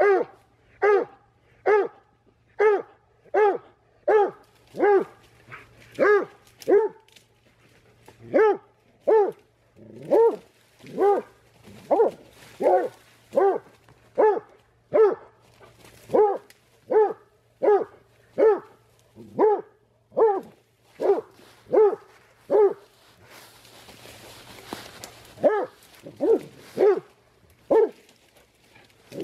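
Black and tan coonhound barking steadily at a raccoon it has cornered, about one and a half barks a second, with a short break about seven seconds in. Near the end the barking stops for about two seconds under a burst of rustling brush, then starts again.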